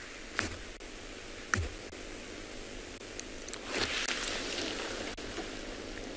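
Steady hiss of background noise, with a few short clicks in the first two seconds and a brief rustle about four seconds in.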